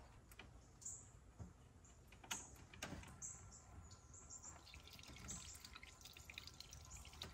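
Near silence, with a few faint clicks and taps of hands working the coolant crossover pipe loose on a 5.3 V8, and faint dripping of coolant.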